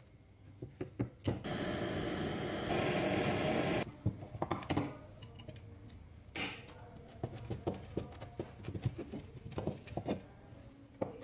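Hand tool work on rusty metal: locking pliers clamped on seized screws in an old chainsaw's metal housing, giving scattered sharp clicks, knocks and scrapes as they grip and turn. A louder rushing, rasping noise runs for about two seconds near the start, and a shorter one comes just after the middle.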